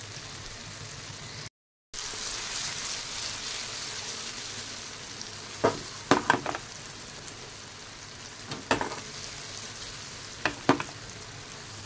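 Stuffed okra sizzling steadily as it fries uncovered in oil in a metal pan, the stage where it is left to crisp on the outside. A spatula knocks and scrapes against the pan a few times around the middle and near the end, and the sound cuts out briefly about a second and a half in.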